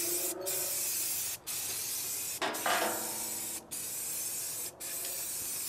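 Aerosol spray paint can hissing as paint is sprayed onto expanded-metal mesh, in a run of bursts about a second long with short breaks between.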